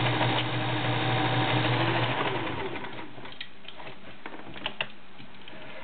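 Vintage Kenmore model 1703 sewing machine running steadily, its motor humming as it stitches a cam-driven arrowhead pattern. The motor stops about two seconds in. A few light clicks follow.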